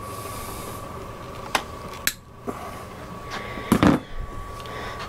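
Nylon zip ties being fastened and trimmed with side cutters: a few sharp clicks in the middle, then a louder clatter late on, over a faint steady hum.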